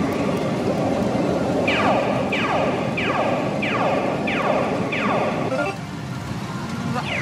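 Steady din of a pachinko parlour, its machines and balls running together. Across it come six quick falling electronic tones about two-thirds of a second apart. The din drops away near the end, and one more falling tone follows.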